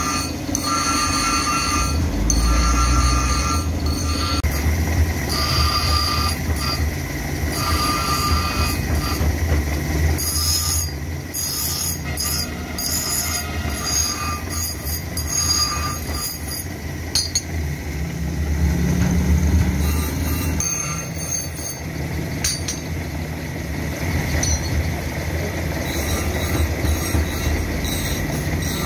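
Forged steel masonry-tool blank ground on a spinning abrasive grinding wheel. It gives a high screech that comes and goes as the blade is pressed on and eased off, over the steady low hum of the grinder's motor.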